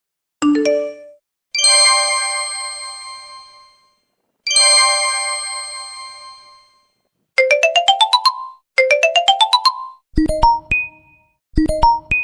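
A run of synthesized phone message notification tones. First a short blip, then a ringing bell chime that dies away over about two seconds, sounded twice, then a quick rising run of eight or so notes, sounded twice, then a short chime of a few plucked notes, also sounded twice.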